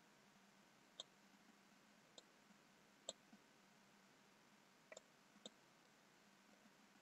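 Faint computer mouse button clicks over near silence: single clicks about a second in, at two and three seconds, then a quick double click near five seconds and one more click just after.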